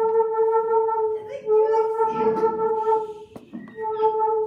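Blowtorch-heated metal fence-post pipe singing as a Rijke tube, the heat glowing inside it driving a loud, steady, horn-like hum. The note drops out briefly about a second in, and again for about half a second just past three seconds with a click, then comes back.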